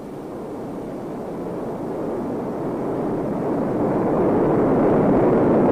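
Rocket sled's rocket motors firing as it speeds down the test track: a rushing noise that grows steadily louder and peaks near the end.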